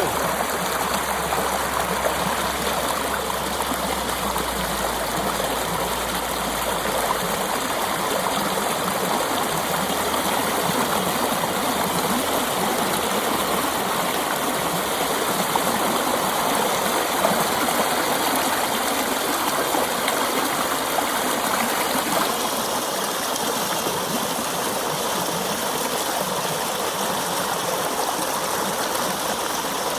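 Mountain stream flowing, a steady wash of running water whose tone shifts slightly about two-thirds of the way through.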